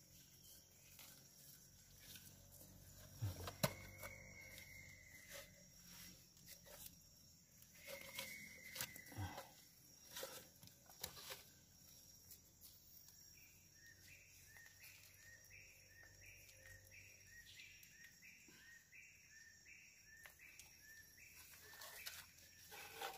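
Faint, scattered knocks and clicks of hollow bamboo tube crab traps being handled and shifted on mangrove mud, the loudest a sharp knock a few seconds in. A high call repeats steadily in the background, about one and a half times a second, through the second half.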